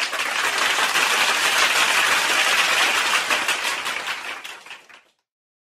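Applause sound effect: a crowd clapping steadily, fading out about five seconds in.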